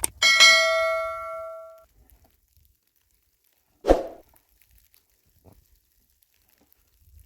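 A metal object struck once, ringing with several clear tones that fade out over about a second and a half. A short dull knock follows about four seconds in.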